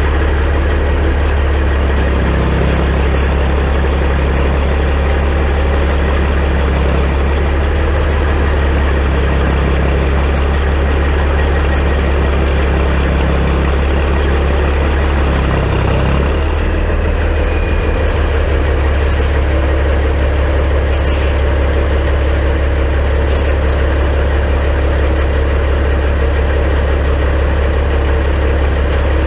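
Diesel engine of a Peterbilt 379 semi truck running steadily at low revs, with a slight change in its note about halfway through.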